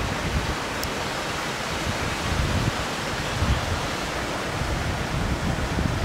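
Steady rush of a small waterfall cascading into a rock pool, with wind buffeting the microphone in low, uneven gusts.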